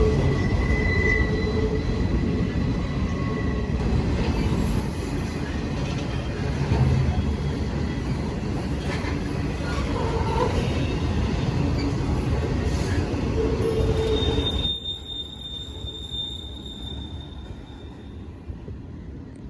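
A BNSF train rolling past, its wheels squealing on the rails in thin, steady high tones over the rumble of the cars. The rolling noise drops off abruptly about three-quarters of the way through, leaving a fainter high squeal.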